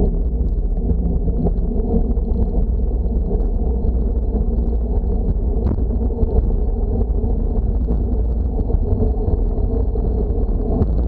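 Wind buffeting the microphone of a bicycle-mounted action camera on a fast road-bike descent, a steady low rushing with road noise from the bike running on asphalt.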